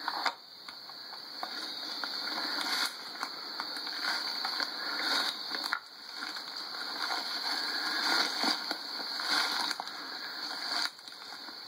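Footsteps crunching and crackling through dry fallen leaves and forest-floor brush, with brief pauses.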